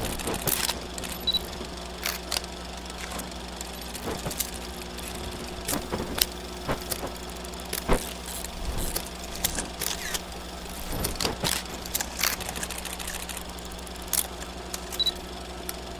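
Old 8mm film projector sound effect: a steady low motor hum with irregular crackles, clicks and pops of worn film.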